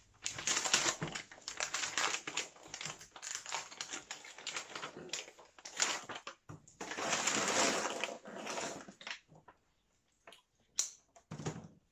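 Packaging being opened by hand: wrapping crinkling and rustling in long crackly bursts, then a few separate sharp clicks and rustles near the end.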